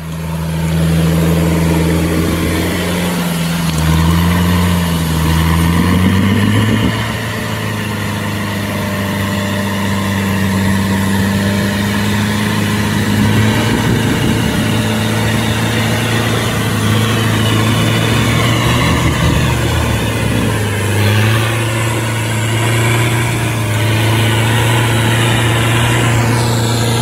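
Modified off-road 4x4's engine running loud and steady under load as it crawls up a steep slope, its pitch stepping up and down a few times as the revs change.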